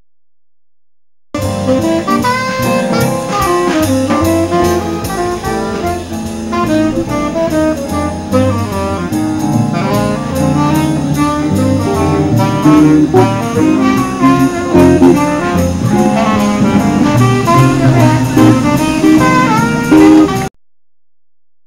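Jazz band music with horns and drums playing to a steady beat. It starts abruptly about a second in and cuts off sharply just before the end, with dead silence on either side.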